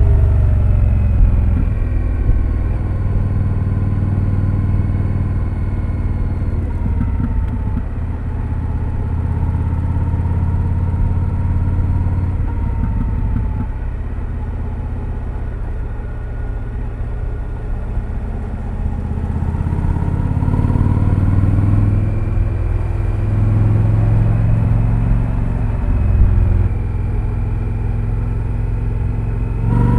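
2025 Indian Scout Sixty Bobber's V-twin running through its stock exhaust while riding, with the engine note easing off and dropping back in the middle, then rising again as the throttle opens about two-thirds of the way through.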